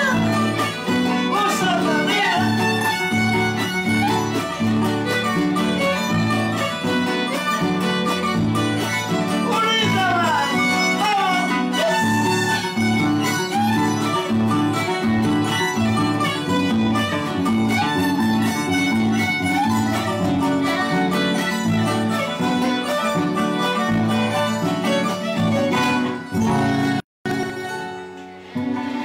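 Andean string trio playing a huayno instrumental: bowed violin melody over the plucked bass of an Andean harp and strummed acoustic guitar, with a steady pulsing bass. Near the end the playing breaks off for an instant, then a last chord rings and fades.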